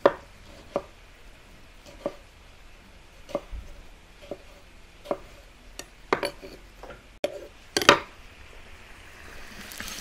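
Knife slicing tomatoes on a wooden cutting board: separate sharp knocks of the blade meeting the board, about one a second, coming closer together in a quick run near the end. Right at the end a loud sizzle starts: meat and carrots frying in a hot kazan as they are stirred.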